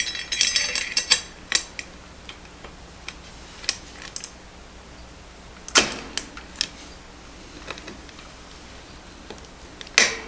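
The roller chain of a Schwinn Airdyne exercise bike is being handled and fitted back onto its sprocket. There is a quick rattle of metal links at the start, then scattered clinks, and two sharper metal knocks about six seconds in and near the end.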